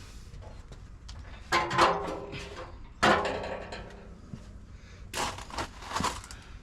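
Metal car body parts knocked and handled: two loud clanks about one and a half and three seconds in, each ringing briefly, then a few lighter knocks near the end.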